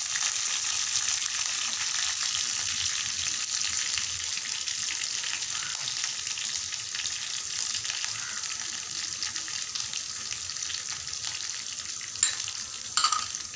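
Chopped shallots frying in hot groundnut oil in a clay pot: a steady sizzle and crackle. A couple of sharp knocks come near the end.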